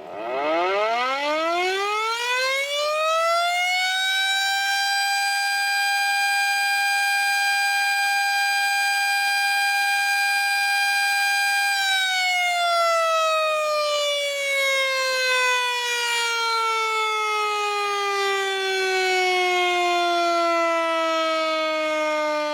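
Civil-defence air-raid siren winding up from a low pitch over about four seconds, holding one steady wail until about halfway, then slowly winding down to a low pitch.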